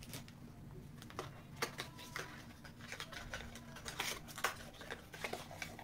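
Cardboard perfume box being opened and handled by hand: scattered light clicks, taps and scrapes of the packaging.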